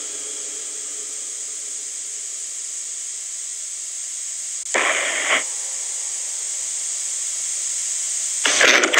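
Steady hiss of spirit-box radio static, with a brief louder burst of noise about five seconds in and another near the end.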